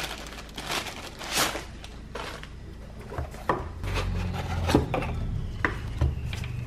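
Plastic mailer bag rustling and a small cardboard box being handled and opened, followed by several sharp knocks and taps as a plastic LED lamp is lifted out and set down on a hard desktop. A low steady hum comes in about four seconds in.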